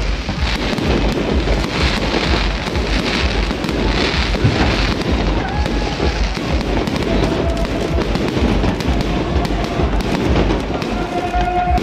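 Fireworks bursting overhead in rapid, continuous succession: a dense crackle of bangs with no let-up.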